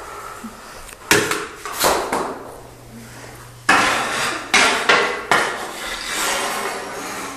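A toddler's toy hockey stick striking the floor: about six sharp knocks at uneven intervals, each with a short ringing tail.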